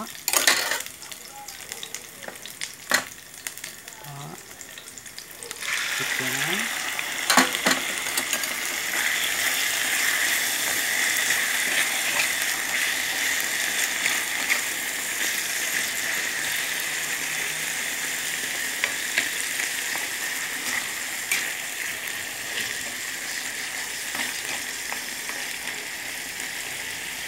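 Chopped onion and garlic sizzle softly in hot oil in a pan, with a few clicks. About six seconds in, raw chicken pieces go into the pan and a much louder, steady sizzle starts, with the spatula stirring through it.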